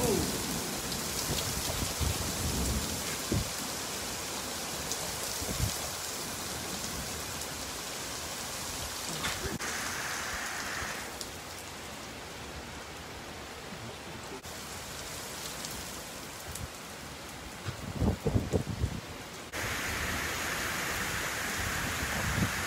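Heavy thunderstorm rain pouring onto the street and pavement, a steady hiss, broken by a few low thumps and a louder burst of them about three-quarters of the way through.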